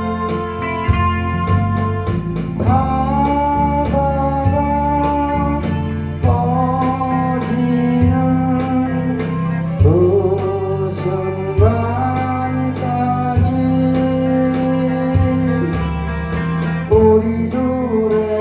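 Live folk-style music: guitar accompaniment under a melody line whose notes glide and bend.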